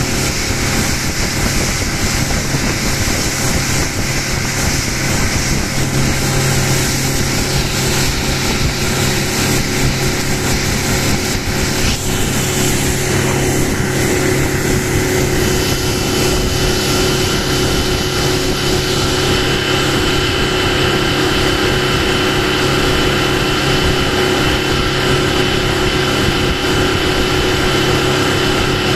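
A small boat's outboard motor running steadily at cruising speed over a constant rush of water and wind; the engine's note shifts a little about halfway through.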